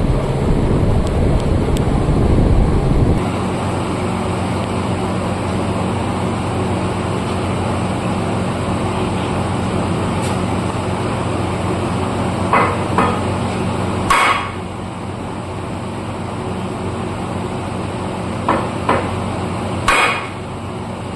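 Hammer blows on metal during tractor rear-axle bearing and oil-seal work: six sharp metallic strikes in the second half, in twos and singles, the loudest about two-thirds of the way in. Under them runs a steady low hum, with a louder rumble for the first three seconds.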